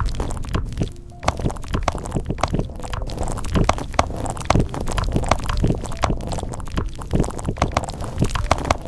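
Keyboard being typed on: a quick, irregular run of keystroke clicks, several a second.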